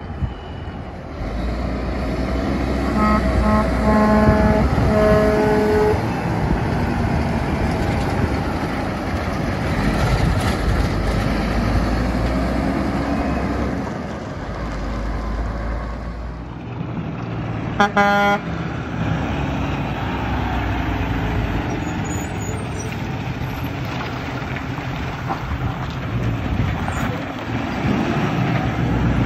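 Diesel engines of concrete mixer trucks running as they drive by, with a few horn toots about three to five seconds in and one short, loud honk about eighteen seconds in.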